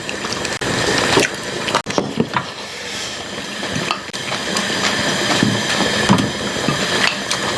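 Eating sounds at a bowl of pork-backbone soup: wet slurping of broth with small clicks.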